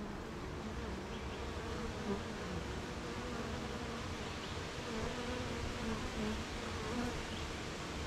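Honeybees buzzing around their hive: a steady hum of many overlapping wingbeats. Individual bees' buzz wavers up and down in pitch as they fly close by.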